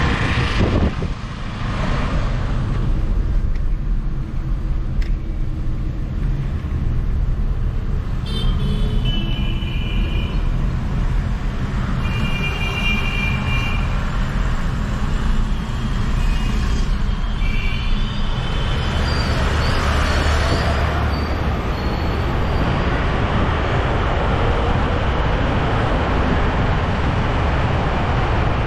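Steady road and traffic noise from a car driving through city streets, with a heavy low rumble of wind on the microphone. Several short vehicle horn toots sound through the middle stretch.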